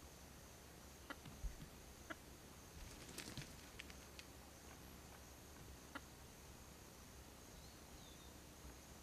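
Quiet outdoor ambience with a steady high hiss, broken by scattered soft clicks of hens pecking and scratching in grass, several close together a little past three seconds in. A brief falling chirp near the end.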